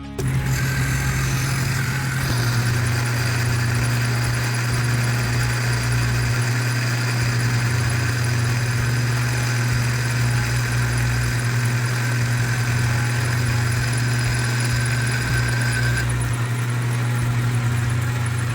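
Metal lathe running steadily with a constant motor hum while machining a steel bicycle fork steerer tube; a higher steady tone drops out a few seconds before the end while the hum continues.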